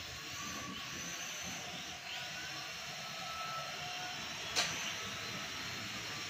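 Small toy quadcopter with propeller guards in flight: a steady, high whirring hiss from its motors and propellers, the whine rising and falling slightly as it moves. A single sharp click about three quarters of the way through.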